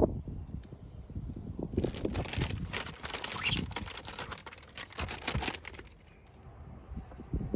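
Plastic crinkling as it is handled, from about two seconds in to about five and a half seconds in, over low knocks and rubbing of handling.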